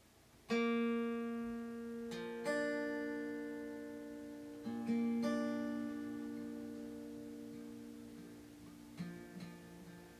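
Acoustic guitar music: slow plucked chords, each left to ring out and fade before the next.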